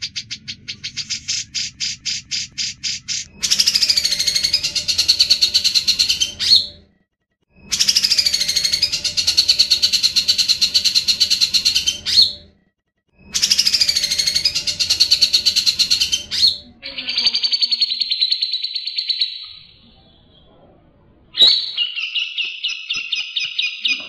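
Grey-cheeked bulbul (cucak jenggot) singing in the rapid, continuous 'ngebren' style: a fast string of repeated notes, then three long rattling trills of about three seconds each with short pauses between them, and two shorter trills near the end.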